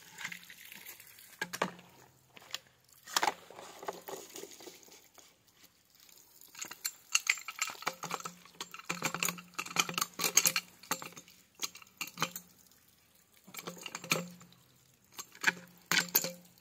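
Pipe wrench gripping and turning a blue plastic compression-fitting nut on black polyethylene water pipe as the joint is tightened: irregular bursts of sharp clicks and knocks, heaviest in the middle and again near the end.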